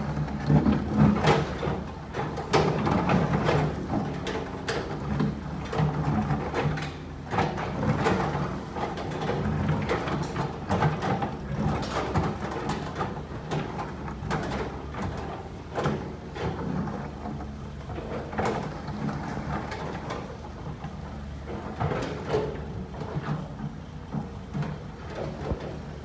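Excavator diesel engine running steadily while its bucket scrapes and knocks against stones and rock, with frequent irregular clanks and clatters.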